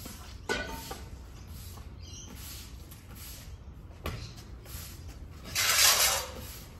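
A long-handled scraper scraping across a bare concrete floor in a few strokes, the longest and loudest near the end, as the surface is prepared for waterproofing.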